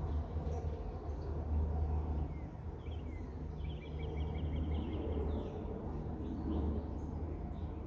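Outdoor ambience: a steady low rumble, with a bird giving a short chirp about three seconds in and then a quick trill of rapid repeated notes lasting about a second.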